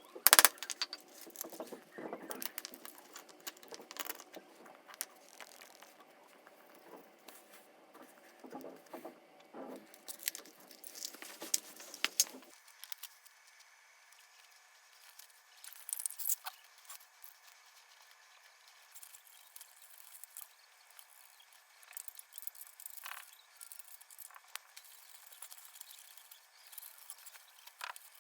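Scattered small clicks, taps and rubbing from hands and tools working a bicycle inner tube and tire during a puncture repair, with a couple of sharper clicks right at the start.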